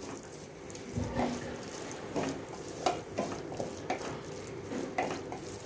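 Spoon stirring and scraping a masala of onion, tomato and spice powders sautéing in an open pressure cooker, with a scrape or knock against the pot about once a second over a low frying hiss.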